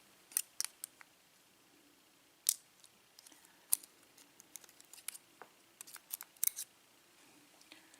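Small, irregular metal clicks and ticks as the tiny brass pins from a disassembled Schlage pin-tumbler lock are picked up and handled with small tools.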